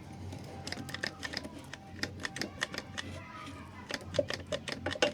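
Quick, irregular light clicks and taps, several a second, from hands handling objects; the reciprocating saw is not running.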